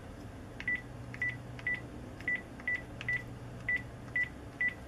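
Panasonic DECT cordless phone handset giving a short high beep for each key press, nine in a row about two a second, each with a faint click of the key. Each key is registering, showing that the cleaned keypad contacts work.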